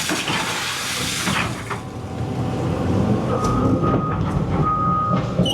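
Cat 320 EL excavator's diesel engine running steadily while the machine digs out a stump. A rushing hiss fills the first second and a half. In the second half a high beep sounds on and off a few times.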